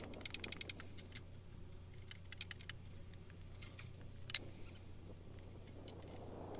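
Faint clicks and knocks of a wooden 2x4 board being pulled out and handled. A quick run of even clicks opens it, and the sharpest knock comes about four seconds in.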